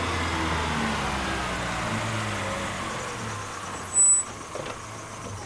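Motor vehicle engine running, slowly fading away. A brief high-pitched squeal cuts through about four seconds in.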